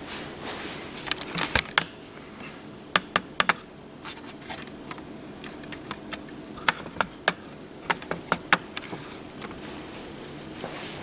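Irregular light metal taps and clicks in short clusters with pauses between: a hammer tapping to knock out the center piece of a boiler pump motor.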